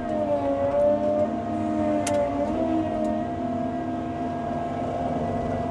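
Tracked loader's engine running under load, its pitch dipping and wavering over the first three seconds as the bucket works, then settling to a steady hum. A sharp click comes about two seconds in.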